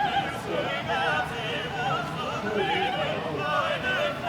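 Classical music with operatic singing, the voices wavering with vibrato.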